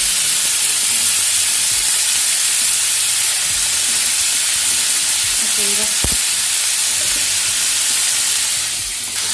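Chopped shallots sizzling as they fry in hot oil in a steel kadai, a steady hiss, with one sharp knock about six seconds in.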